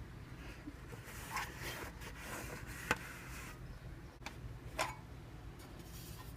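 Light handling sounds of the wallet and its packaging being unboxed: a soft rustle and three sharp clicks spread over a few seconds.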